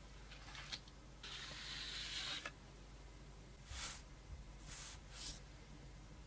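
Faint handling of smartphone packaging: a click, then a scraping slide of about a second, followed by three brief rustles.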